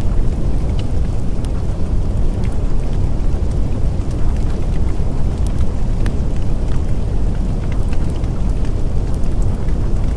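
Steady, dense rain with a deep rumble underneath and scattered sharp drop ticks.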